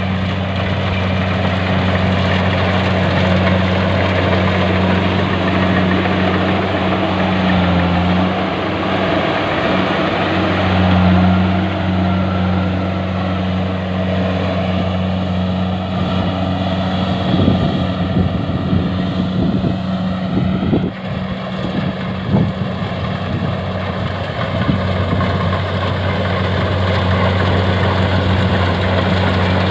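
Engine of a rice harvesting machine running steadily under load, a constant low hum with machinery noise above it, and some irregular knocking and clatter in the middle of the stretch.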